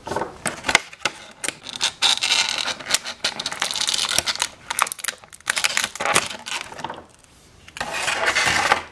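Thin clear plastic blister packaging crinkling and crackling in irregular bursts as it is handled. There is a short lull, then a denser rustle of about a second near the end.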